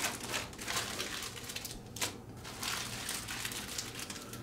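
Irregular rustling and crinkling of small plastic parts bags being handled and sorted through, with light clicks and taps.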